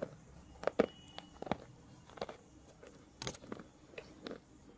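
Slate pencil being bitten and chewed: an irregular string of sharp crunches and clicks, about three a second.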